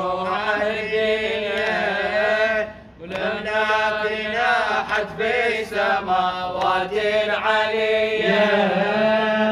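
Male voice chanting an Arabic Shia elegy (nawha) in long, wavering sung lines, with a short break about three seconds in.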